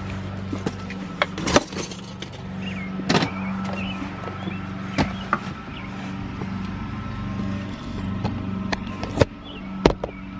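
Clicks and knocks of someone getting into a car and handling the door and cabin fittings, the sharpest about a second and a half in, over a steady low hum.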